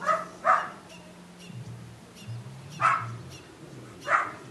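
Belgian Malinois puppy barking four times: two quick barks at the start, then one about three seconds in and another near the end.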